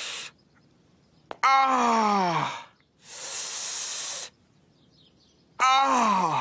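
A man in pain from a hurt knee sucking air sharply through his teeth and letting out long groans that fall in pitch, hiss and groan in turns, two groans in all. The cartoon voice is that of Peter Griffin.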